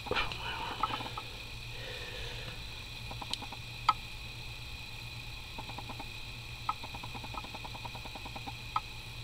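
Small handling clicks from metal tweezers picking up a gemstone in the first second, then scattered sharp ticks and runs of faint fine ticking over a steady electrical hum.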